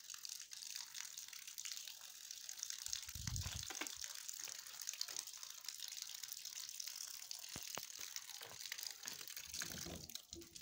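Faint, steady hiss of running water, with a short low thump about three seconds in.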